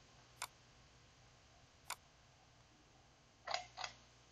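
Computer mouse clicks: two sharp single clicks about a second and a half apart, then two duller clicks in quick succession near the end, over faint room hiss.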